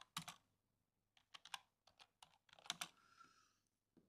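Faint typing on a computer keyboard: irregular keystrokes as a text query is entered.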